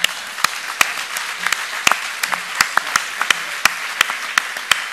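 Large audience applauding: dense clapping that breaks out suddenly, with many individual sharp claps standing out.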